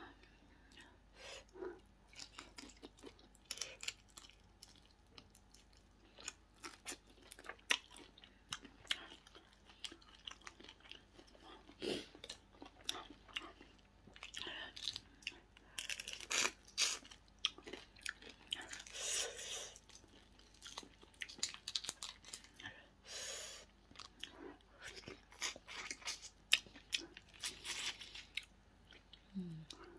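Close-up eating sounds: cooked prawns being peeled by hand, with many small cracks and crackles of shell, and wet chewing. The clicks are scattered and irregular, with a few longer crunchy stretches.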